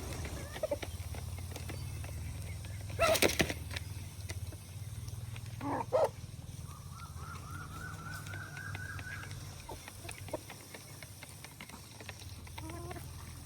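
Chickens calling, with a burst of wing flapping about three seconds in, a sharp squawk near six seconds and then a quick run of repeated calls, over a steady low hum.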